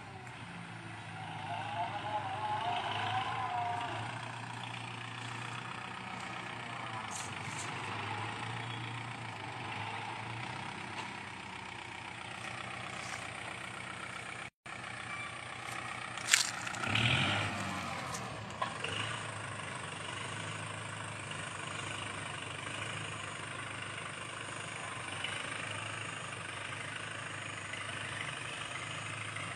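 Kubota tractor's diesel engine running steadily as it pulls a cultivator through the soil. About halfway through, the sound cuts out for an instant. Soon after, a loud, brief sound with a falling pitch stands out over the engine.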